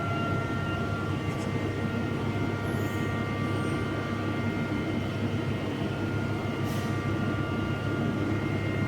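Heavy machinery running steadily: a constant engine rumble with several steady whining tones over it.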